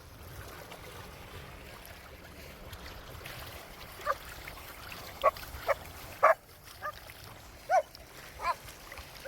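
A dog giving about seven short, sharp yelps, starting about four seconds in, over a low steady rumble.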